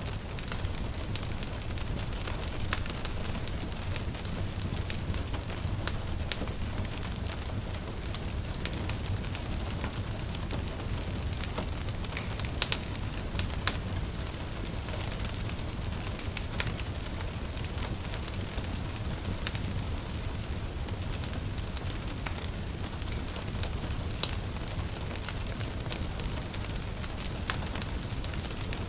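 Wood fire crackling in a fireplace, with frequent irregular sharp pops over a steady low rumble, mixed with gentle rain. A few louder pops come near the middle.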